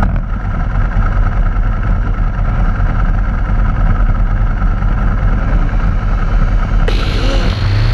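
Motorcycle engines idling on a starting grid, the closest being a Ducati Multistrada 1000DS's air-cooled L-twin, a steady low rumble. About seven seconds in, loud music comes in over it.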